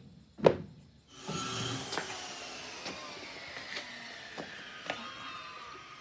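A passing motor: a steady noise with a whine that slowly falls in pitch and fades, with a few light clicks over it.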